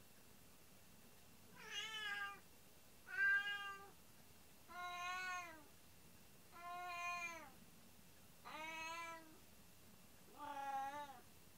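A domestic cat meowing over and over: six drawn-out meows about two seconds apart, each rising and then falling in pitch. It is the lonely meowing of a cat left home alone.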